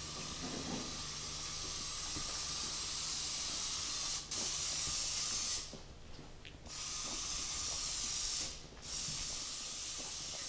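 Aerosol spray-paint can spraying in long hissing bursts. The spray breaks off briefly about four seconds in, stops for about a second around six seconds, and pauses again near nine seconds.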